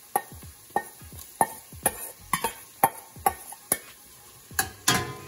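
A metal spoon knocking and scraping against a stainless steel bowl and pot as minced garlic and ginger are pushed into the pot: about a dozen sharp clinks with a short metallic ring, the loudest near the end. Onions sizzle faintly in hot oil underneath.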